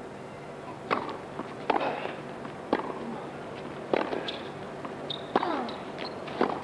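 Tennis ball being hit back and forth in a rally: sharp pops of racquet strings striking the ball and the ball bouncing on the court, about one a second.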